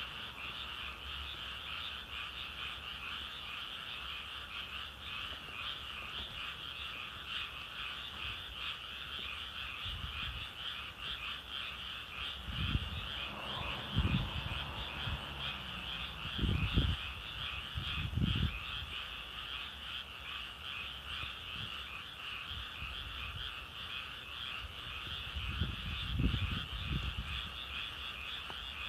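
A chorus of many frogs calling together, a dense, steady, rapidly pulsing high-pitched chatter that never stops. A few low thumps break in around the middle and again near the end.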